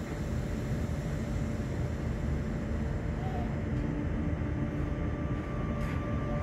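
Inside a Stadler electric railcar: the steady hum and rumble of its running equipment while it stands at a platform. About five seconds in, a steady higher whine from the traction drive comes in as the train starts to pull away.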